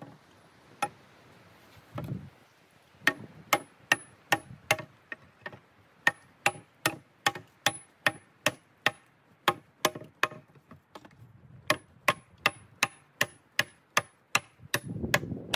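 Rapid, even blows of a hand tool, about three a second, in runs of several strikes with short pauses between. Each blow carries a faint high ring.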